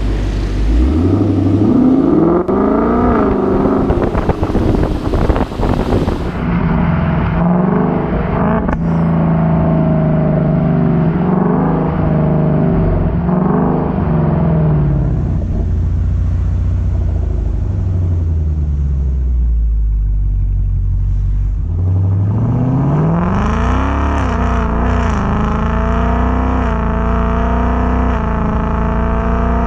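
2018 Mustang GT's 5.0 V8 being driven hard: the revs climb and drop through several gear changes, settle, sink away from about 15 s, then the engine pulls up strongly again at about 22 s and holds.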